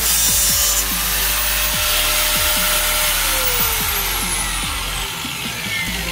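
Handheld angle grinder with a cut-off disc cutting the sheet-steel side panel of a PC case. After about three seconds the trigger is released and the whine falls in pitch as the disc spins down. Background music with a steady beat plays underneath.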